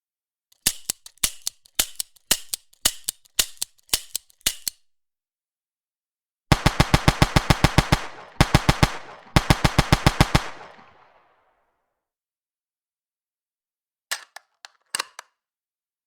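Gunshot sound effects: a string of a dozen or so separate sharp shots fired in quick succession, then three bursts of rapid automatic fire at about ten shots a second with a ringing tail after the last, and a few more sharp shots near the end.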